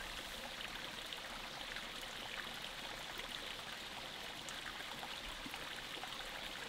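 Faint, steady sound of water trickling, with small scattered drips.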